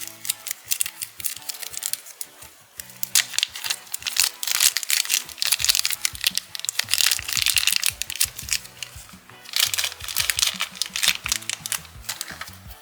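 Slime being squeezed and worked by hand, giving dense crackling and popping in spells, over background music with a simple stepping melody.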